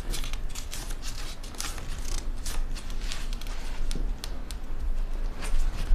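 Paper banknotes being counted by hand: a run of crisp, irregular flicks and rustles of the notes, several a second.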